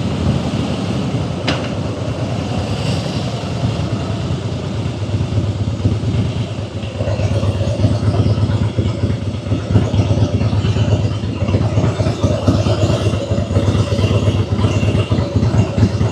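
Harley-Davidson Fat Boy's V-twin engine and exhaust running under the rider, a steady throbbing beat that grows louder and more distinct about halfway through.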